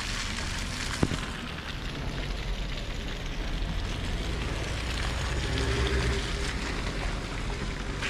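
Slushy city street noise: a steady wet hiss, with one sharp click about a second in and a vehicle's low hum growing louder in the second half.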